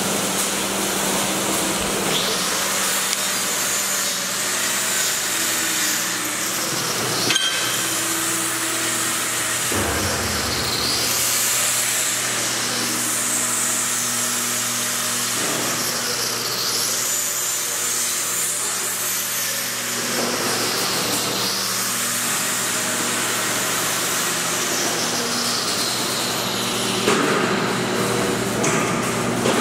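Power tools running steadily in a school metal and wood shop, a continuous mechanical noise with a high whine that dips and recovers a few times.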